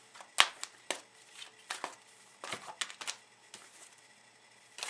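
Tarot cards being shuffled and handled: a scattered run of short sharp snaps and taps, the loudest about half a second in.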